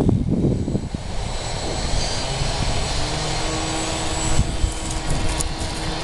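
Electric motor and propeller of a ParkZone Albatros radio-controlled biplane running in flight, its steady hum clearest from about halfway through, with wind gusting on the microphone.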